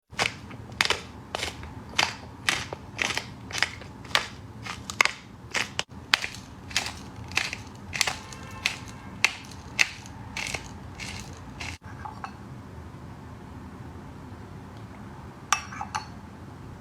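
Sharp knocks repeating about twice a second, then a quieter stretch with two more knocks near the end.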